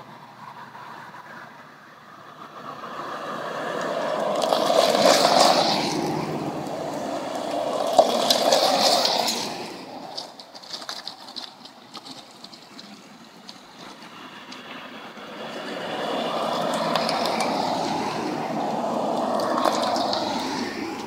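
Classic cars driving past one after another, each engine and tyre sound rising and fading away: one about five seconds in, another about nine seconds in, and a longer pass in the last few seconds.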